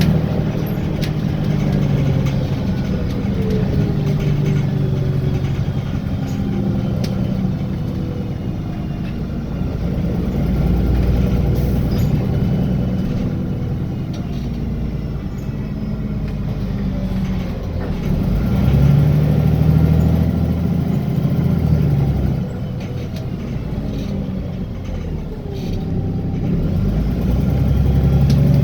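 VDL DB300 double-decker bus engine and transmission heard from inside, running with a pitch that rises and falls several times as the bus pulls away, accelerates and slows.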